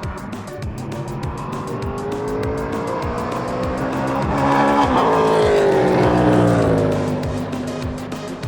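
A race car passing by at speed: its engine note climbs and grows louder as it approaches, is loudest about five seconds in, then drops in pitch and fades as it pulls away. Music with a steady beat plays throughout.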